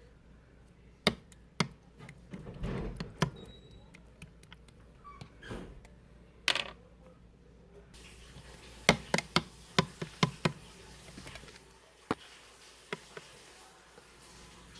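Scattered sharp knocks and clicks in a small room, with a quick run of them about nine to ten and a half seconds in. From about eight seconds in a faint steady hiss sets in beneath them.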